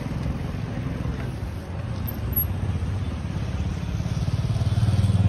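A motorcycle engine running with a steady low pulse, growing louder toward the end.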